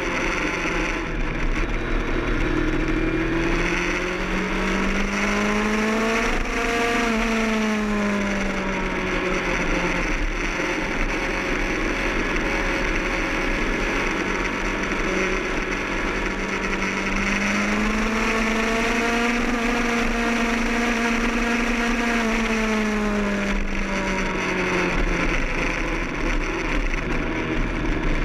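Kawasaki ZX-10R inline-four sport-bike engine running at track speed under wind rush, its pitch climbing and falling away twice, peaking about six seconds in and again around twenty seconds in.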